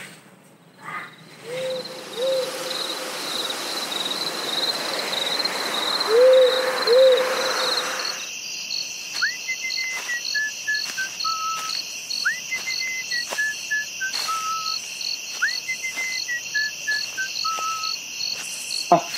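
Night ambience: an owl hooting in pairs over a swelling hiss and a faint insect trill. About eight seconds in the hiss cuts off and crickets chirp steadily while a person whistles a short tune, a quick rising note and then falling steps, three times.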